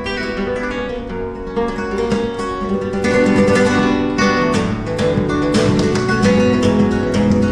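Flamenco guitar playing por soleá, with plucked notes and chords, getting louder and busier about three seconds in.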